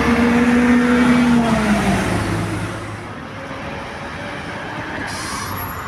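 City bus engine running as the bus pulls away, its steady note falling and fading after about a second and a half. Steady street traffic noise follows, with a brief hiss near the end.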